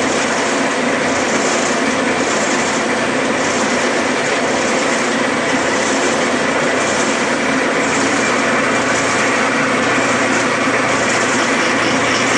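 Clausing metal lathe running under power feed while a single-point tool cuts a left-hand thread in Delrin plastic. It makes a steady mechanical drone with a light rhythmic clatter.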